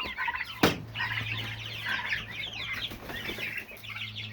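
A flock of young turkeys, broad-breasted bronze and Narragansett, peeping and chirping all at once in many short, quick calls. There is one sharp knock about half a second in.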